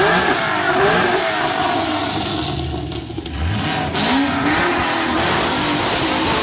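A passing car's engine revved hard, its pitch rising and falling twice: once near the start and again about four seconds in.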